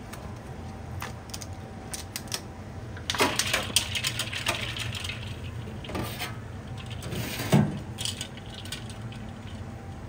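Baby anago eels (noresore) and their water tipped from a plastic tub into a stainless-steel bowl of water, splashing, with small clicks of plastic and metal. About three-quarters of the way through there is a single louder knock.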